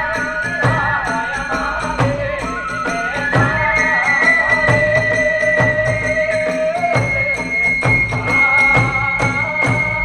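Hiroshima-style kagura accompaniment: drum strikes and clashing hand cymbals in a driving rhythm, with a bamboo flute holding long high notes.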